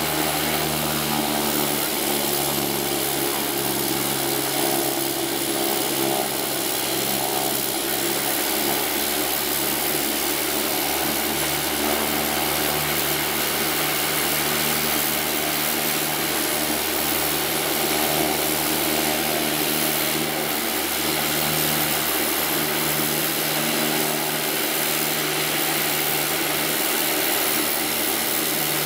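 Fuji T-7 trainer's turboprop engine running steadily on the ground with its propeller turning: an even drone with a constant hiss. The pitch and level barely change.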